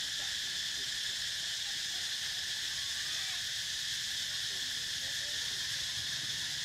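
Chorus of insects, a steady high-pitched buzzing drone that holds level throughout.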